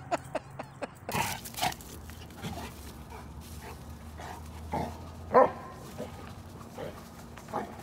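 A dog barking in short, scattered barks, the loudest about five seconds in.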